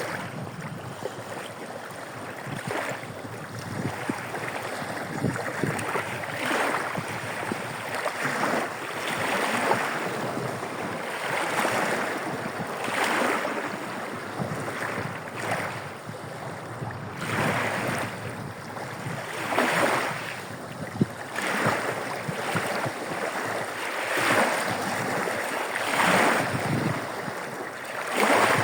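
Small waves breaking and washing onto a shore of a bay, one swell of surf noise every second or two over a steady wash.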